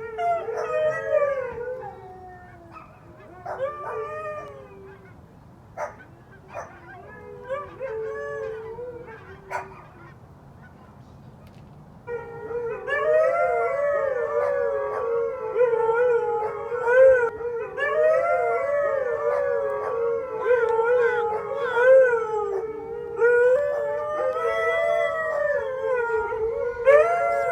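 Huskies howling and yowling, several voices overlapping. The calls are sparse and quieter at first, with a few sharp clicks, then become a loud, continuous chorus from about halfway in.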